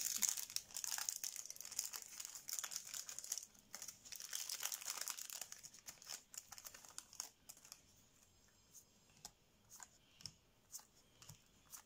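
Foil booster-pack wrapper crinkling as it is handled and opened. About seven seconds in, the crinkling gives way to light, separate clicks and taps as trading cards are handled.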